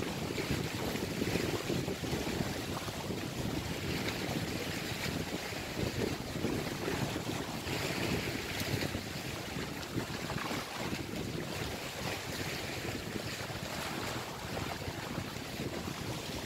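Wind buffeting the microphone in a steady low rumble, over small sea waves washing and splashing against the rocks of a breakwater.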